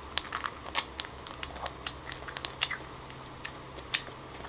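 Close-up wet chewing and mouth clicks of a person biting and eating a ripe, juicy cashew apple: a run of short, irregular smacking clicks, with one louder click near the end.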